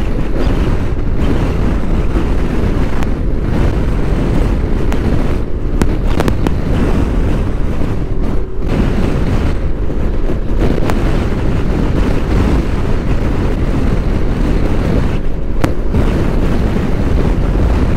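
Strong crosswind battering the microphone of a moving motorcycle: a loud, uneven rush of wind noise over the bike's engine and road noise at speed.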